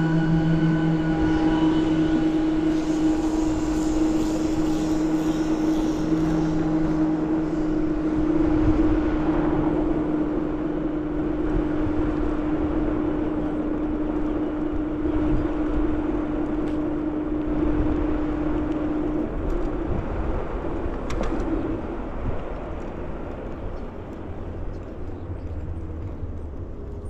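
Wind and road noise from riding a Ninebot Max G30P electric kick scooter, with a steady low hum that stops about two-thirds of the way through. The noise eases off near the end.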